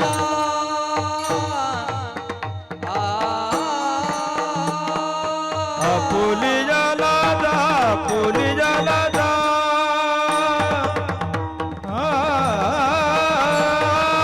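Marathi Varkari kirtan music: a mridang plays a running rhythm under a melody that slides and bends in pitch, with brief dips in the music about three seconds in and again near the end.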